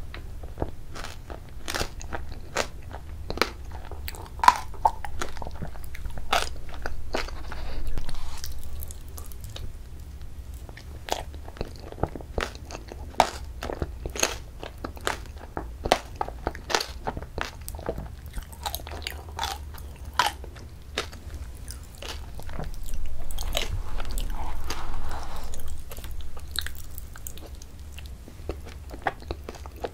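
Close-miked mouth sounds of eating ice cream with crunchy mix-ins: chewing and crunching, with many sharp, irregular wet clicks and smacks.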